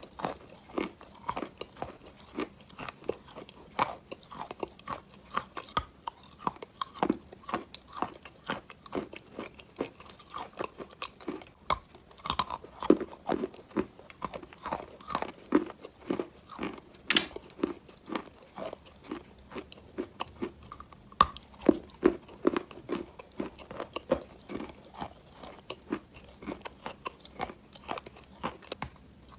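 Close-miked chewing of wet chalk soaked in clay water: a steady run of short crunches, a few a second.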